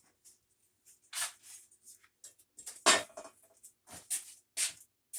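Irregular knocks, rustles and scrapes of objects being handled and moved about in a workshop, with one sharp knock about three seconds in as the loudest.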